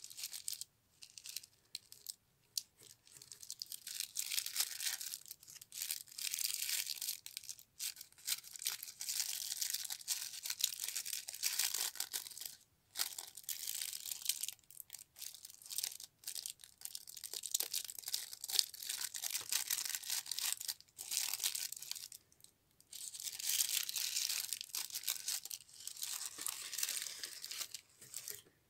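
Black tissue paper being unwrapped and handled, rustling and crinkling in long stretches with brief pauses.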